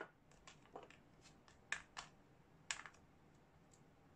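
A dozen or so light, irregular clicks and taps of small metal parts of a CO2 revolver being handled, with three sharper clicks near the middle.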